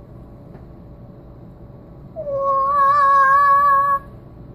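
A young girl's voice singing one held note for nearly two seconds, sliding down a little at the start, then holding with a slight waver before stopping abruptly.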